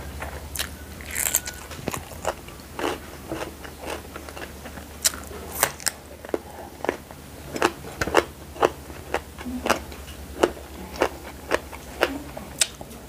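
Close-up crunching and chewing of raw Thai eggplant: a long run of sharp, crisp bites and crunches, one or two a second, as the raw vegetable is bitten and chewed.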